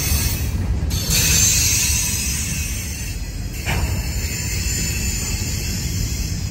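Freight train of covered hopper cars rolling past: a steady low rumble of wheels on the rails, with a thin high squeal and hiss above it.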